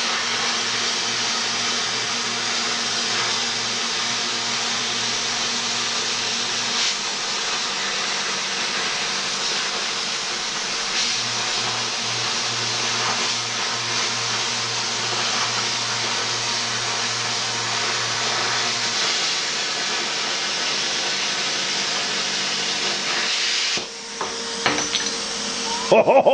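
Plasma cutter torch cutting through steel plate: a steady, loud air-and-arc hiss with a low hum underneath that drops out and comes back. The arc cuts off about 24 seconds in.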